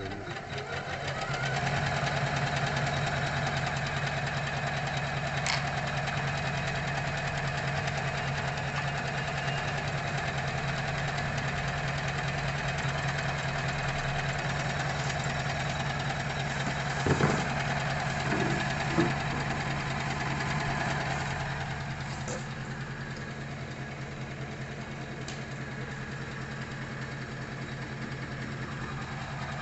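Usha Janome MC 450 computerised embroidery machine running, its needle stitching steadily and rapidly through fabric in the hoop. A few louder clacks come about halfway through, and it runs a little quieter over the last third.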